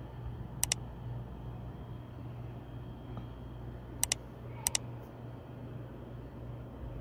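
Three sharp computer-mouse click sound effects, each a quick double click: one about a second in, then two close together around four to five seconds in. A steady low hum runs underneath.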